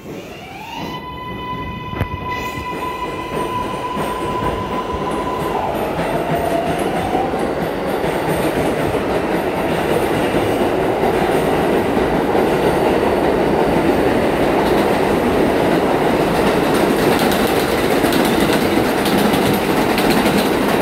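R142A subway train pulling out past the platform. Its traction motors whine, rising in pitch in the first second and then holding one steady pitch for about five seconds. Then the clatter and rush of steel wheels on the rails takes over and keeps growing louder as the cars speed up past.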